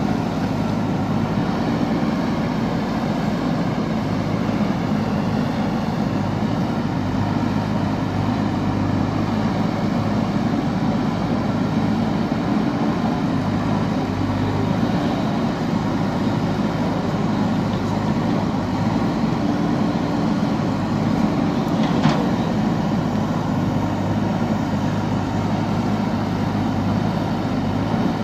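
JCB backhoe loader's diesel engine running steadily, with a single sharp knock about three-quarters of the way through.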